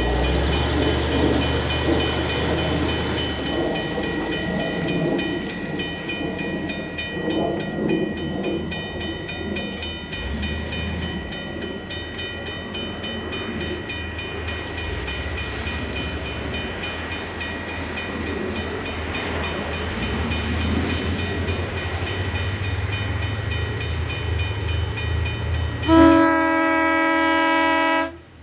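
An approaching lash-up of Denver & Rio Grande Western SD45 diesel locomotives, their big EMD engines running with a steady low drone. About 26 seconds in, the lead unit's air horn sounds one long, loud blast that breaks off just before the end.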